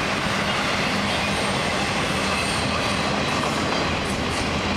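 Autorack freight cars of an FEC freight train rolling past: a steady rumble of steel wheels on the rails, with a faint high-pitched squeal about halfway through.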